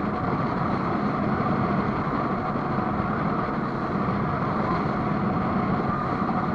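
Pleasure speedboat running at speed: a steady engine drone under a dense, unbroken rush of noise.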